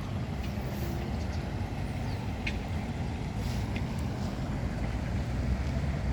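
Steady low outdoor rumble, like traffic or wind, with a few faint short high chirps and ticks.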